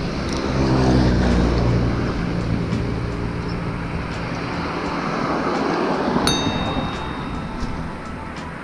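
A road vehicle passing on the road close by, its engine hum and tyre noise loudest about a second in and then slowly fading away. A single sharp click with a brief high ring comes about six seconds in.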